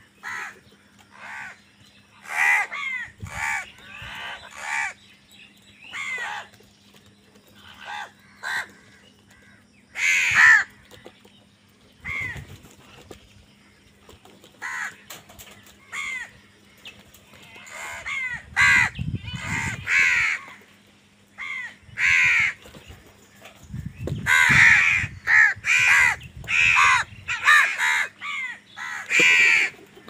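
A flock of house crows cawing in short, repeated calls as they crowd around a bowl of food, the calls overlapping more thickly near the end. A low rumble comes twice, around the middle and again near the end.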